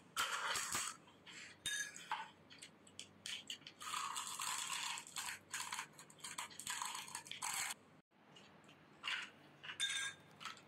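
Crisp hollow panipuri (gupchup) shells being cracked open with fingers and crunched while eating, in bursts of crackling and crunching with short clicks. A couple of light clinks, as of a spoon on a glass bowl, come in between.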